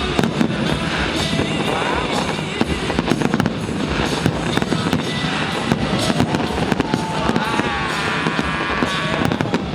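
Aerial fireworks bursting and crackling in quick succession, many sharp bangs over a dense rumble, with music playing along.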